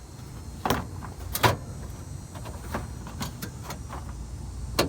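A few sharp knocks and clicks of parts being handled and fitted by hand on the car's nitrous setup, the loudest pair about a second and a half in, over a low rumble.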